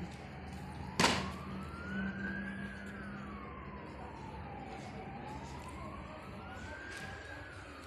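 An emergency-vehicle siren wailing, its pitch rising and falling slowly twice, with a single sharp knock about a second in.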